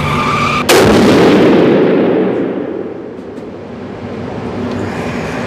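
A single 300 PRC rifle shot from a Seekins Havak PH2 about a second in: a sharp crack, then a long reverberating tail that dies away over about two seconds in the enclosed indoor range.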